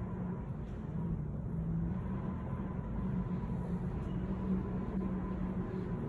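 Steady low hum and rumble of an underground railway platform, with a faint, thin, high steady tone above it.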